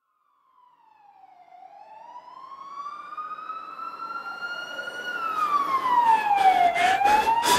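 A wailing siren fading in from silence and growing louder, its pitch sliding down, rising slowly for a few seconds, falling, then rising again. A fainter second sliding tone overlaps it at first, and a few sharp clicks come in near the end.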